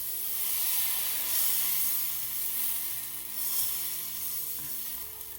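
Crêpe batter sizzling on a hot oiled griddle as it is spread thin with a crêpe spreader; the hiss swells twice and eases off near the end.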